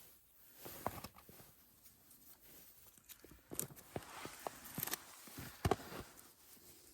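Birch bark and thin wood slivers being split and torn by hand for tinder: scattered small cracks and rustling crackles, with a few sharper snaps, the loudest about two-thirds of the way through.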